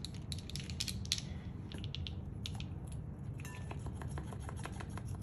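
Run of small irregular clicks and snips: kitchen shears cutting and prying at the plastic seal on a spice jar.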